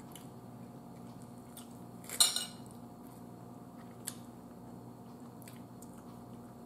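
A brief clatter of cutlery against a dinner plate about two seconds in, and a small tap a couple of seconds later, over a faint steady room hum.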